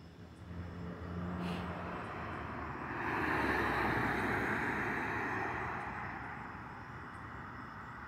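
A car passing on the street. Its engine hum and tyre noise swell to a peak about four seconds in, then fade away.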